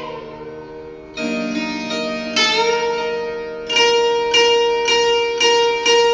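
Indian lap slide guitar playing a slow raga alap: a plucked note about a second in, a note sliding upward a little after two seconds, then one held pitch re-plucked about twice a second.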